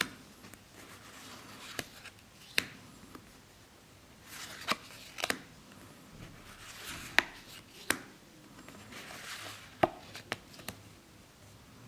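A stack of Magic: The Gathering trading cards handled one by one: soft swishes of card sliding over card, with sharp clicks and taps as each card is moved to the back of the stack, about eight or nine in all.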